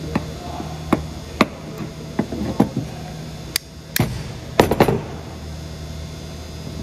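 Sharp metal taps and clinks on a steel security-pin door hinge as a hammer and a small tool work at its security pin: about a dozen separate taps, the loudest quick cluster a little after halfway, then they stop.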